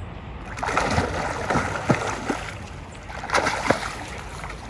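A hooked salmon thrashing and splashing at the surface of the river while being played in close to the bank. There are two bouts of splashing with sharp falling plops, one starting about half a second in and a shorter one a little after three seconds.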